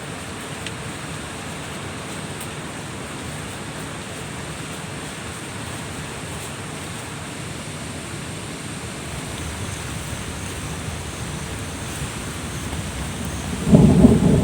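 Steady rushing noise of water and drizzling rain at night. Near the end a sudden loud, low thunder rumble breaks in.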